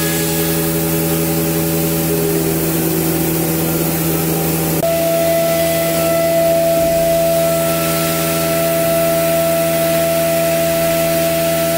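CNC router's 6.5 kW spindle cutting 6 mm aluminium sheet in one pass: a steady multi-toned whine with cutting noise under it. About five seconds in, a new steady tone joins in.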